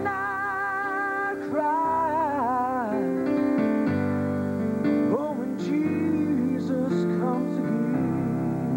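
Male gospel singer holding long notes with vibrato over electronic keyboard accompaniment. The voice drops out for a moment about three seconds in while the keyboard chords carry on, then returns with a few sliding phrases.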